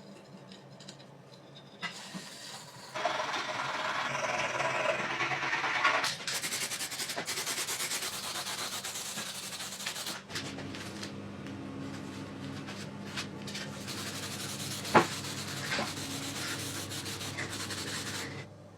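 Sanding on the metal fuel tank of a vintage Honda motorcycle, an abrasive scraping that starts about two seconds in and stops shortly before the end. It is loudest for a few seconds near the start, carries a low steady hum through the later part, and has one sharp click about three-quarters of the way through.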